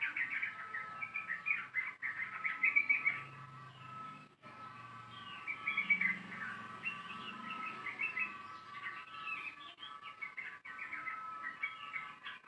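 Yellow-vented bulbul (trucukan) singing long runs of rapid chirping phrases in three stretches, with a short lull about three to five seconds in.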